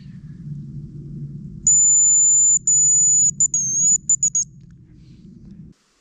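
Hazel grouse decoy whistle blown close by, imitating a cock's song: two long, very high whistles, then a dipping note and a quick run of short notes. A low steady rumble sits underneath and cuts off abruptly near the end.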